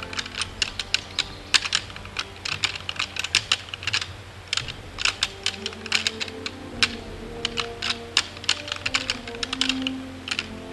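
Deer-rattling sound: antler tines, or an antler-imitating rattle call, clacking and grinding together in irregular flurries with short pauses, imitating bucks sparring.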